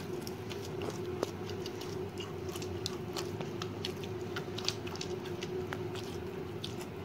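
Hands kneading soft, oily sheermal dough in a plastic bowl: sticky squelches with many small, irregular clicks and smacks, over a steady background hum.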